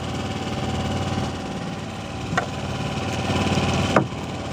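A fishing boat's engine idling steadily, with two short sharp knocks about a second and a half apart, the second near the end.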